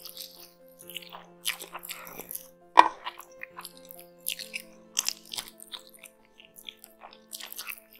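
Chewing and biting on mouthfuls of green mutton biryani eaten by hand, a series of short chewing sounds with one loud sharp crunch a little under three seconds in. Soft background music plays under it.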